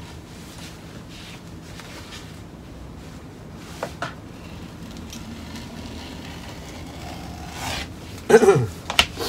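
Neoprene wetsuit pieces being handled on a wooden workbench: soft rubbing and scraping, with a brief click about four seconds in and a louder short sound that falls in pitch near the end.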